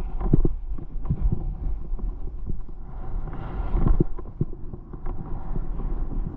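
Skis sliding over uneven, crusted snow, scraping with irregular knocks as they hit the bumps, over a steady low rumble of wind on the microphone.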